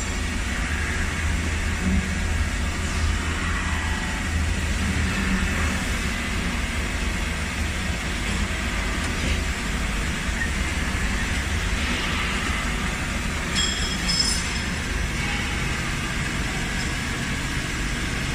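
Nakamura WT-250MMY CNC turning centre running with a steady low machine hum. A brief cluster of light metallic clicks comes about three quarters of the way through.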